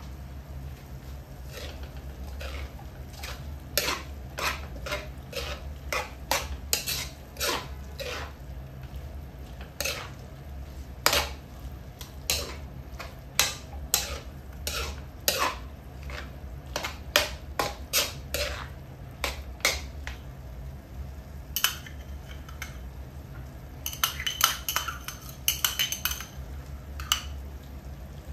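Metal ladle scraping and knocking against an aluminium wok as minced meat is stirred, in irregular strokes every half second or so, with a few ringing clanks of metal on metal near the end. A steady low hum runs underneath.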